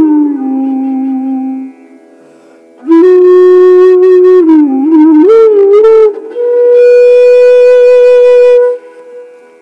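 Music: a slow solo melody on one sustained-tone instrument. It plays phrases of held notes with gliding bends, with a short pause after about two seconds and a long high note that fades near the end.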